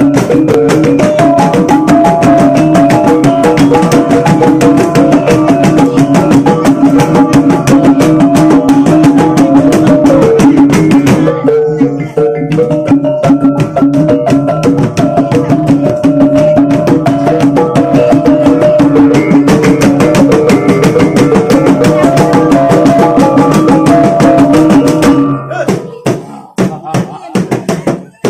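Bajau bertitik gong-and-drum ensemble playing: a row of kulintangan gongs struck with wooden sticks over long gendang drums and large hanging gongs, in a fast, steady, loud beat. Near the end the playing breaks up into a few separate strokes and stops.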